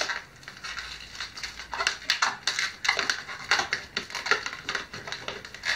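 Latex modelling balloon squeaking and rubbing under the fingers as a bubble is stretched and twisted on its axis to form a dog's ear, in short irregular bursts.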